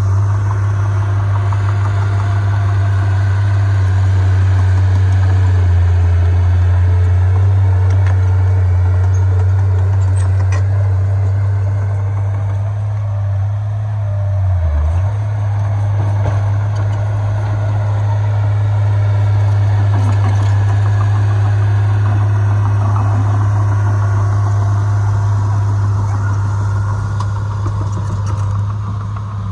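Heavy diesel engine of earthmoving machinery running steadily, with a brief drop in pitch about halfway through.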